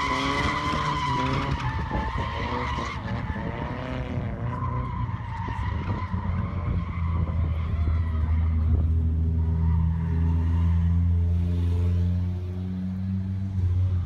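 Drift cars sliding with tyres screeching and engines revving, the squeal fading over the first few seconds. Then a steady low engine drone from cars on the track.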